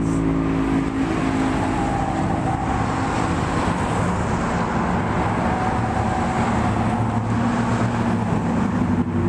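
Road traffic: cars passing close by, a steady mix of engine hum and tyre noise.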